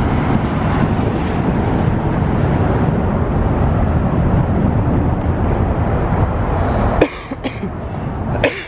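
Mercury outboard motor on a bass boat running steadily as the boat pulls away, heard as a dense, even rush. It cuts off suddenly about seven seconds in, followed by a few sharp clicks and a short vocal sound near the end.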